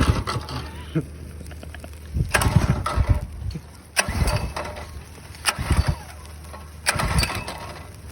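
Small 105cc engine being cranked over and over, catching for a moment and dying each time: about five tries a second or two apart. It will not keep running because its gas tank holds water and it has no oil.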